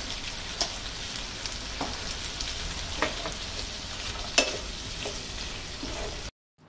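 Onion, tomato, cashews and dried red chillies sizzling in butter in a frying pan while they are stirred, with a few light knocks of the utensil against the pan. The sound cuts off abruptly near the end.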